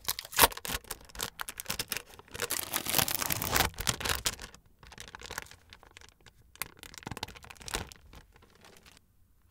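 Clear plastic film being peeled off an individually wrapped processed cheese slice: dense crinkling and crackling for the first four seconds or so, then sparser crinkles that die away near the end.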